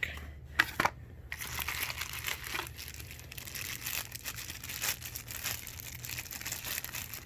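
Plastic packaging crinkling and rustling as a power brick is handled, after a couple of light clicks.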